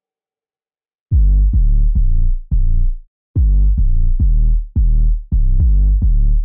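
Electronic background music: after about a second of silence, deep, loud bass notes repeat about twice a second.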